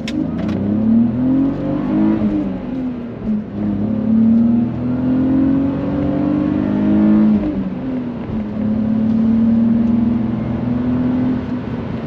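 BMW 328i E46's 2.8-litre straight-six (M52TU B28) pulling hard under acceleration, its pitch climbing and then dropping at gear changes about two seconds in and again about seven seconds in.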